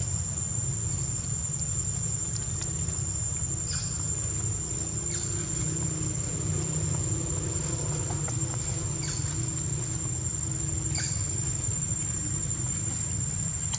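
Outdoor background: a steady high-pitched insect drone over a constant low rumble, with a few faint clicks scattered through.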